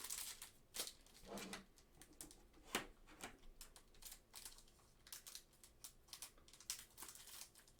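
Trading cards and foil card packs being handled: scattered faint clicks, taps and crinkles.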